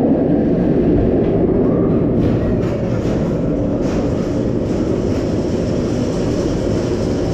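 Bolliger & Mabillard steel roller coaster train rolling along the track with a steady low rumble from its wheels, a few faint clicks coming through in the middle.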